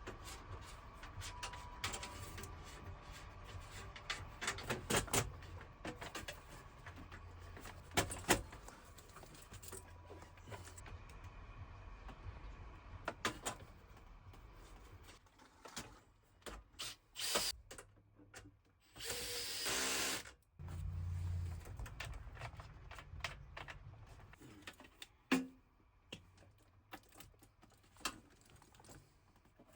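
Hand tools and metal parts clicking and knocking at irregular intervals. About two-thirds of the way through comes one short noisy burst, like a power tool run briefly.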